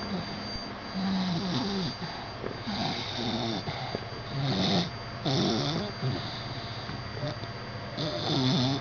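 Sleeping dog snoring: a run of uneven snores, several with a wavering, whistle-like pitch.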